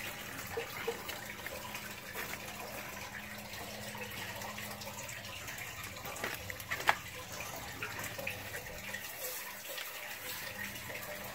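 Water running steadily, with a low hum that fades out about nine seconds in. A couple of light knocks come around six and seven seconds in.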